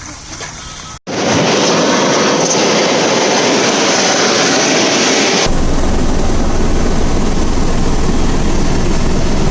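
Loud, steady helicopter engine and rotor noise that starts abruptly about a second in and switches abruptly to a deeper noise about halfway through.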